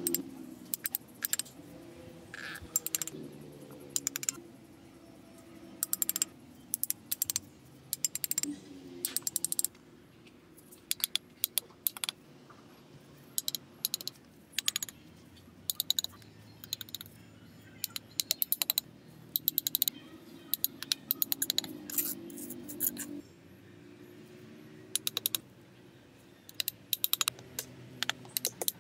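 Steel trowel tapping and scraping on bricks as they are bedded into mortar: quick clusters of sharp clicks, a few taps at a time, repeating every second or two over a low steady background hum.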